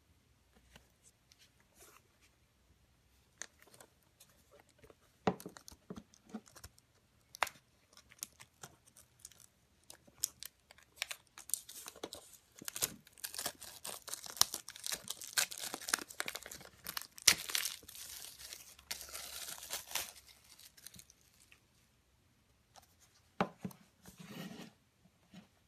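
Clear plastic shrink wrap being picked at, torn and peeled off a Blu-ray steelbook case: scattered crinkles and clicks at first, then a long stretch of dense crackling and tearing in the middle, with a few handling knocks near the end.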